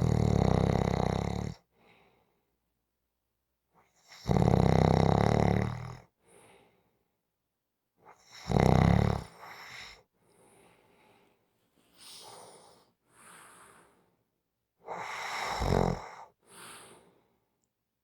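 Snoring in sleep: four loud snores about four seconds apart, each with a low buzzing rattle, and fainter breaths between them.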